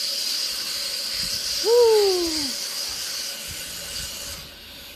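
Pressure-washer foam lance spraying active foam onto an electric scooter: a steady hissing spray. About two seconds in, a short falling vocal exclamation rises over it, and the spray grows quieter near the end.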